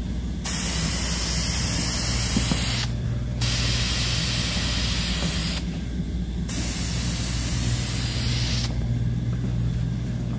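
Aerosol can of painter's guide coat spraying in long hissing bursts with short pauses between, dusting a light black coat over gray urethane primer so that sanding marks and defects will show up in water sanding.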